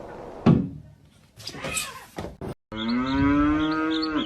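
A sudden loud thump about half a second in. Then, after a cut, a long drawn-out animal call at a steady pitch, like a moo, lasting about a second and a half.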